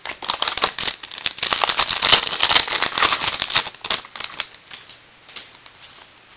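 Baseball trading cards being shuffled and flipped through in the hands: a dense run of rapid clicking and rustling card stock for about four seconds, then a few scattered clicks.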